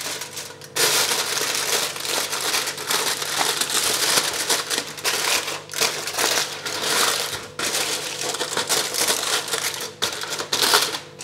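Aluminium foil crinkling and crumpling as a sheet is handled and pressed down over the rim of a cooking pot. A continuous rustle starts about a second in, with a few brief breaks.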